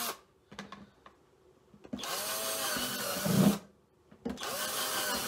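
Cordless drill boring holes through a thin plastic food container. It makes two short runs of about a second and a half each, with the motor's pitch rising and then falling in each, and a few light clicks before them.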